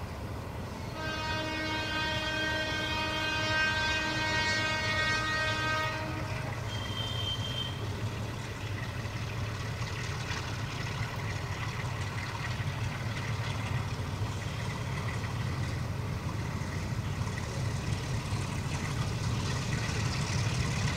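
Bangladesh Railway diesel locomotive sounding its horn in one long blast of about five seconds, starting about a second in. The engine's low rumble then runs on and grows louder as the train of oil tank wagons approaches.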